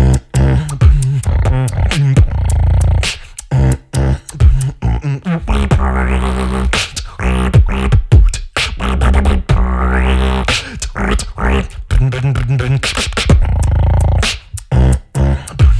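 Solo beatboxing into a handheld microphone: a heavy, sustained bass line under fast kick, snare and click sounds, with rising sweeps about six and ten seconds in.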